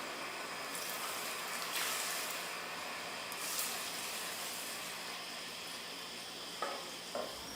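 Hot spring water pouring steadily into an open-air bath, a continuous hiss with a few brief louder surges in the first few seconds. Two small knocks near the end.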